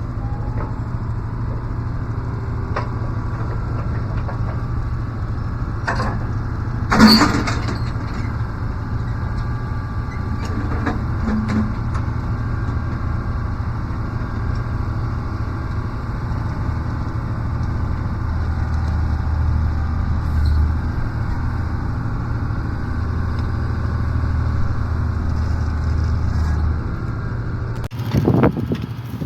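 Koehring 405 dragline's engine running steadily as the crane works, with one loud metallic clank about seven seconds in. A deeper engine note joins for several seconds past the middle.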